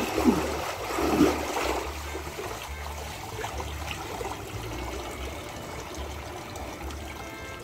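Splashing in a shallow stream as a person in a soaked wool coat heaves up out of the water: two big splashes in the first second and a half. Then a steady trickle of water running and dripping off the sodden coat into the stream.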